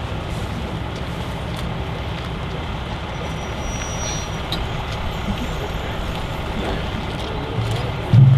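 A steady low rumble with an even level. Near the end, much louder drumming with music suddenly starts.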